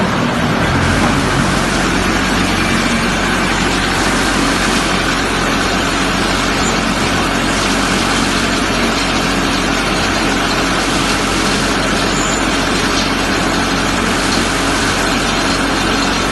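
Diesel engine of a concrete pump running steadily, its low note shifting slightly about a second in.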